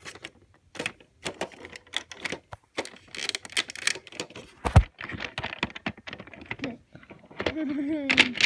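Irregular clicking and clattering of small hard objects being handled, typical of plastic toy trains being moved about, with one louder knock about halfway through. A short sound falling in pitch, like a brief voice, comes near the end.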